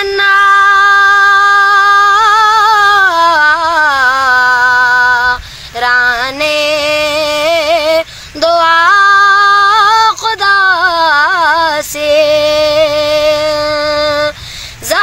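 A boy's solo voice singing a devotional qasida in long held notes with wavering ornaments, with no instruments. The phrases break every few seconds for a breath.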